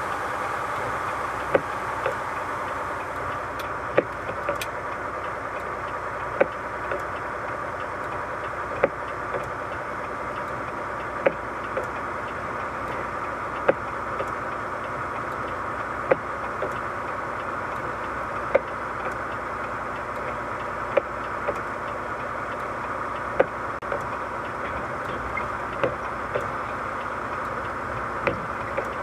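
Vehicle running at a steady pace with a constant hum, broken by a regular pair of thumps about every two and a half seconds: a sharp one followed half a second later by a softer one.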